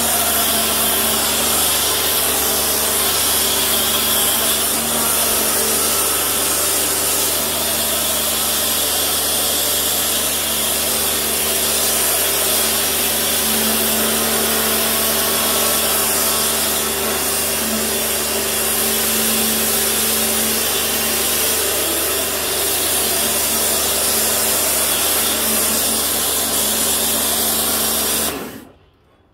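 Pressure washer running with a foam lance, spraying a thick coat of cleaning foam: a steady motor-and-pump hum under the loud hiss of the spray, which cuts off near the end.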